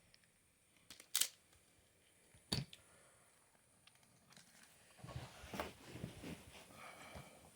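Two sharp clicks about a second and a half apart, then a couple of seconds of scraping and rustling handling noise, as of small parts being worked by hand.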